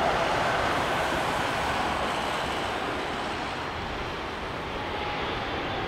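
Boeing 777-300ER's twin GE90 jet engines as the airliner rolls out along the runway after landing: a steady rushing jet noise that slowly gets quieter.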